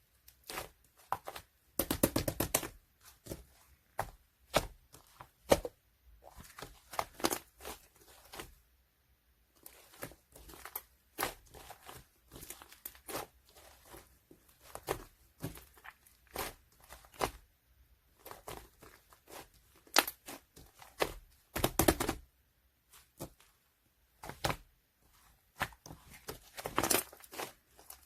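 Slime being played with by hand, making irregular sticky crackles and pops, with louder bursts of crackling about 2, 22 and 27 seconds in.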